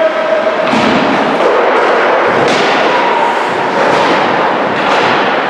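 Ice hockey play in an arena: a steady wash of skates and sticks on the ice, broken by several sharp knocks of sticks, puck and boards.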